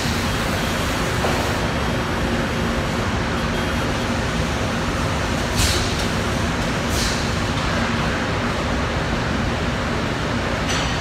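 Steady machinery noise in a workshop with a low hum, broken by short bursts of hiss about five and a half and seven seconds in and again near the end.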